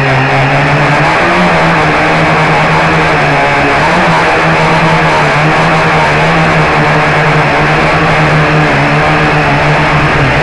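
Blade 350 QX quadcopter's four electric motors and propellers, heard from its onboard camera: a loud, steady buzzing hum whose pitch wavers slightly as the throttle shifts, over rushing air noise.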